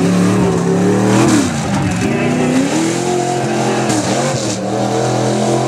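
Modified off-road tough truck's engine revving hard, its pitch climbing and dropping several times as the throttle is worked.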